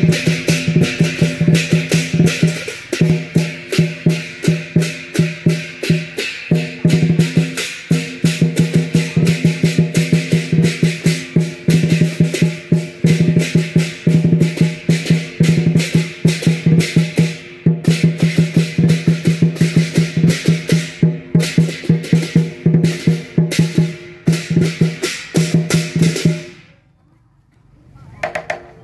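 Lion dance percussion: a drum beaten in a fast, steady rhythm with cymbals clashing on nearly every beat. It stops abruptly about two seconds before the end.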